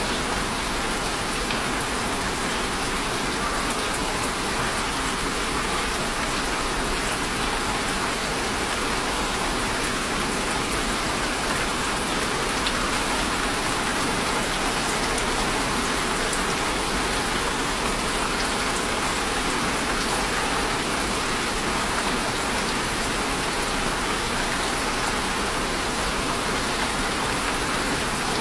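Steady rain falling on a surface, an even hiss with scattered drop patter.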